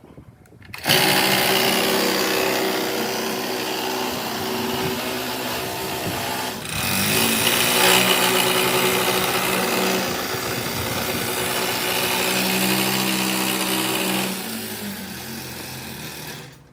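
A small motor running steadily with a hum of several tones. It starts abruptly about a second in, dips briefly around the middle, and dies away near the end.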